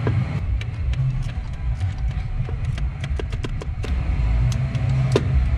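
Torque wrench ratchet clicking in short irregular runs as exhaust manifold bolts are tightened, with one stronger click about five seconds in, over a steady low rumble.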